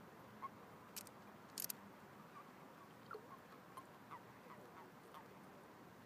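Faint, scattered short croaking calls from toads mating in pond water, with two sharp clicks about a second and a second and a half in.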